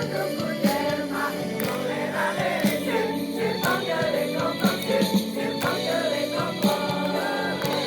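Choir singing in several parts with sustained notes, over accompaniment with a steady beat of about one stroke a second.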